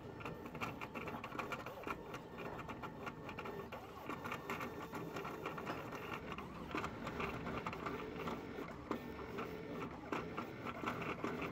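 PCUT vinyl cutting plotter running, its carriage and blade cutting black sheet material on the roller: a steady motor whine that keeps shifting in pitch, with rapid ticking.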